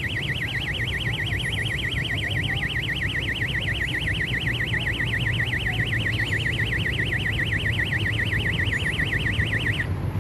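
Electronic alarm warbling fast and evenly between two high pitches, about seven times a second, over a steady low engine-like rumble; the alarm cuts off near the end.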